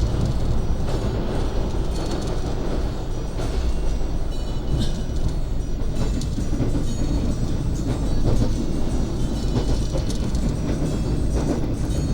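Argo Bromo Anggrek express train running at speed along the track: a steady low rumble with scattered sharp clicks from the wheels.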